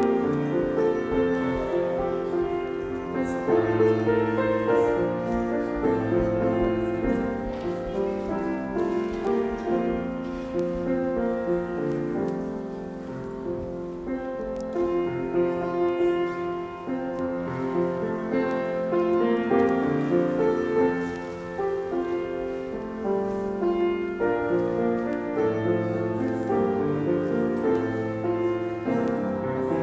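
Piano playing a hymn, with held chords over long bass notes.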